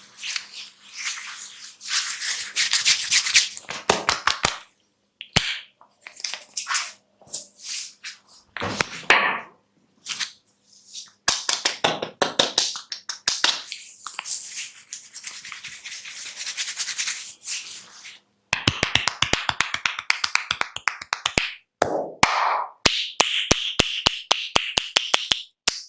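Barber's head massage: sharp hand taps and finger snaps, mixed with rustling of hands rubbing through hair, and a fast run of sharp taps in the last third.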